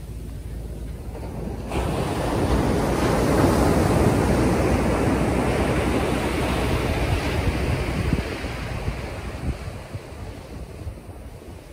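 Ocean waves breaking and washing in, with wind buffeting the microphone; the noise swells sharply about two seconds in and eases off after about eight seconds.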